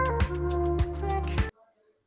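Background music with a steady beat and a sustained melody, cutting off suddenly about a second and a half in, followed by near silence.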